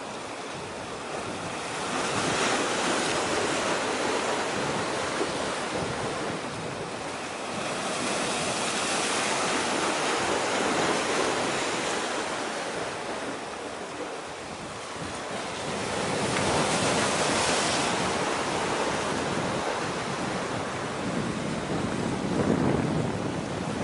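Sea waves washing in against the shore, a steady rushing that swells and fades every six or seven seconds, with wind buffeting the microphone.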